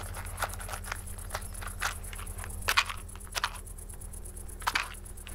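Hands fiddling with a small object: scattered short scratches and clicks, with a few louder ones near the middle and near the end, over a steady low hum.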